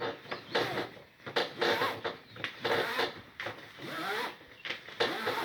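Nylon ratchet-strap webbing being tugged and dragged through the metal ratchet and its drum in a series of short, irregular rasping strokes, as the over-wound strap is worked loose.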